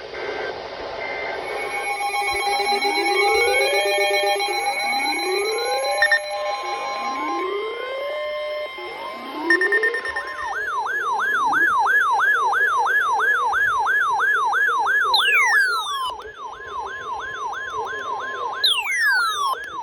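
Electronic siren: a rising wail that repeats about every two seconds over steady tones, switching about halfway through to a fast yelp, with two quick falling sweeps near the end.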